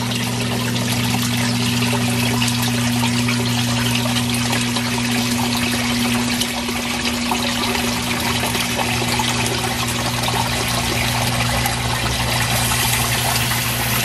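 Zoeller submersible sump pump running in a flooded footer-drain pit: a steady motor hum over rushing, trickling water as it pumps the pit down. The hum cuts off at the very end as the pump shuts off.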